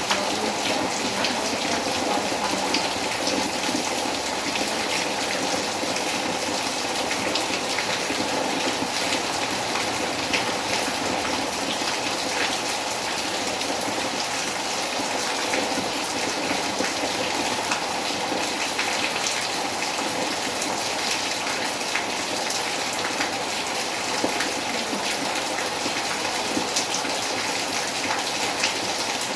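Summer rain falling steadily: an even, dense hiss of rain with many scattered drop ticks on surfaces.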